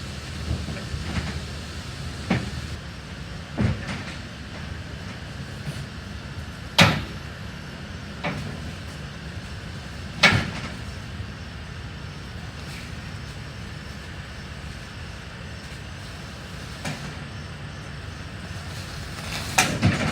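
Irregular bangs and clunks of junk being thrown and dropped into a truck bed, about seven separate hits, the loudest about a third of the way and halfway through, with a cluster of knocks at the end.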